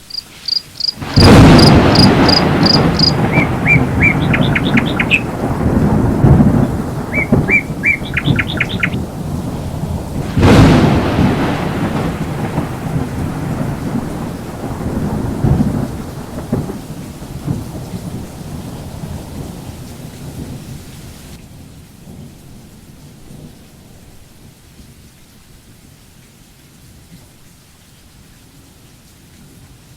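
Thunderstorm: a loud thunderclap about a second in rolls into a long rumble, a second clap comes about ten seconds in, and the thunder dies away slowly over rain hiss. Short, evenly repeated high chirps sound in the first few seconds and again a few seconds later.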